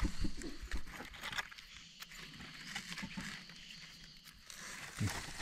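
Faint handling sounds: small clicks, scrapes and rustles as a red forest mushroom is trimmed with a knife over dry leaf litter.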